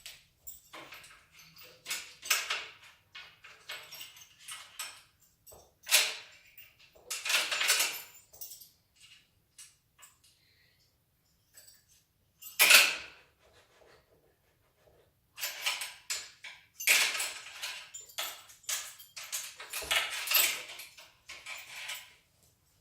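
Irregular clicks, clinks and rustling of hands and tools working on a bicycle being assembled, with short quiet gaps; the sharpest clatter comes about halfway through.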